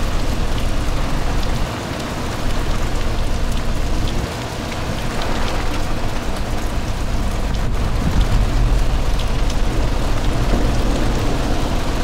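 Rain pouring down steadily in a severe thunderstorm, over a low rumble that swells about eight seconds in.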